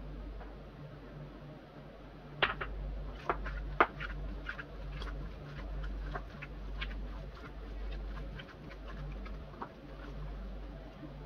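Gloved hands squeezing and kneading a raw minced-meat and onion mixture in a glass bowl: irregular wet, sticky clicks and smacks starting about two seconds in, loudest in the first few seconds, over a steady low electrical hum.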